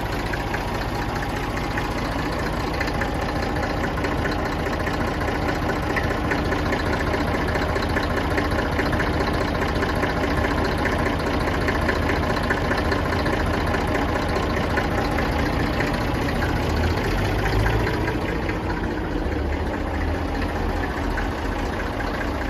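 A 1961 Fordson Dexta tractor's engine idling steadily.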